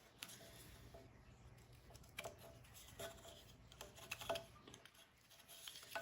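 Faint, scattered light clicks and taps of wooden pieces being handled, as a compound-cut scroll-saw piece is worked loose where it is stuck tight in its block. The scroll saw is not running.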